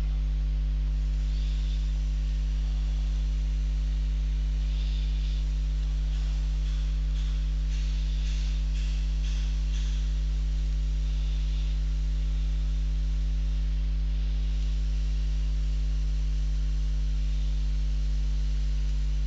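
Steady electrical mains hum with its overtones. Faint scratching from a pen stylus writing comes and goes in the first half.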